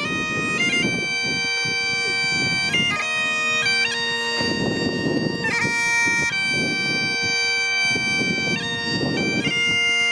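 Bagpipes playing a tune: a melody of held notes stepping up and down over steady drones.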